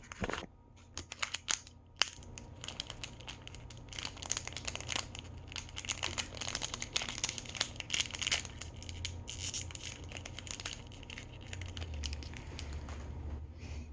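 Small plastic toy packaging being opened by hand: crinkling and tearing, with a steady run of crackles and sharp clicks.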